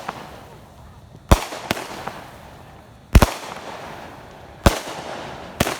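Fireworks going off: about five sharp bangs a second or more apart, the loudest a little past the middle, each followed by a fading tail.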